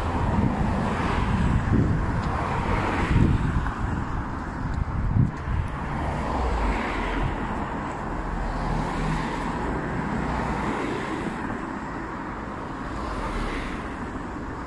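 Road traffic going by: a steady low rumble with cars passing every few seconds.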